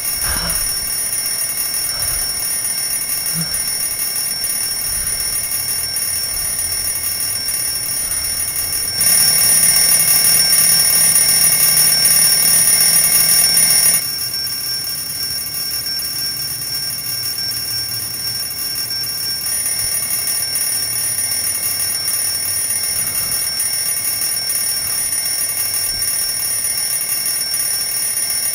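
Alarm clock ringing without a break, louder for about five seconds in the middle.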